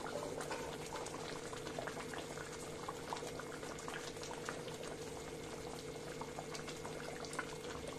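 Thick tomato gravy of shahi matar paneer simmering in a kadhai, bubbling with many small, irregular pops.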